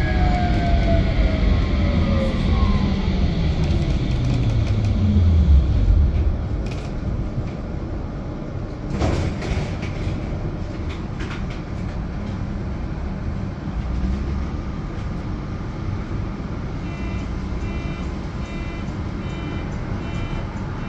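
GT6NU low-floor tram slowing down: the traction motors' whine falls in pitch and fades over the first several seconds as it comes to a stop, leaving a quieter rumble. A sharp click comes about nine seconds in, and near the end a run of short electronic beeps repeats evenly.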